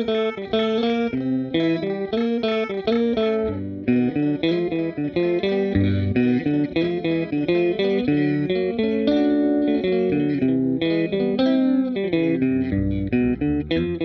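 Electric guitar played through a Seesaw V2 pitch-shifter pedal: a run of picked notes, with the pitch sliding up and down in glides near the end.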